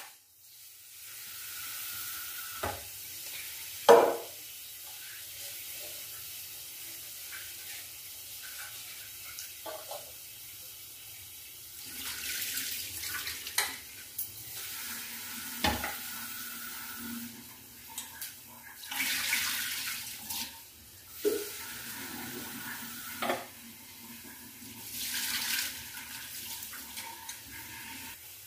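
Kitchen work with cookware: scattered knocks and clinks, the sharpest about four seconds in, and three short spells of hissing noise in the second half.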